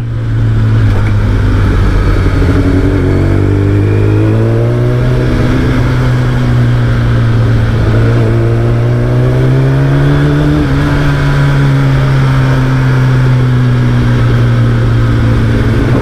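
Kawasaki ZX-10R's inline-four engine and exhaust under way at steady part throttle, one even note. Its pitch rises gently about four seconds in and again around ten seconds, then eases off.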